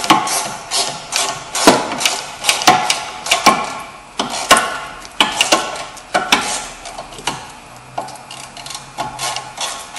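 Ratchet wrench clicking in bunches of quick strokes as the 14 mm bolts holding a rear brake caliper mounting bracket are loosened. The clicks thin out over the last few seconds.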